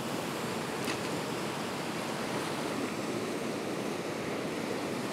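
Heavy surf breaking and washing over a rocky shore, a steady rush of white water from a sea running rough.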